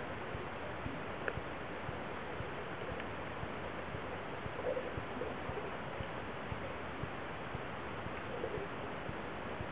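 Muffled steady underwater hiss picked up by a submerged camera, with scattered small clicks and a few faint gurgles about halfway through and again near the end.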